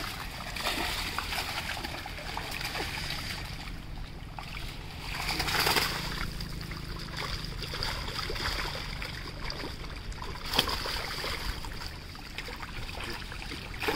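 Water splashing and sloshing as a cast net holding fish is hauled through shallow water at the bank, over a steady hiss, with a louder splash about five and a half seconds in and a short sharp splash near ten and a half seconds.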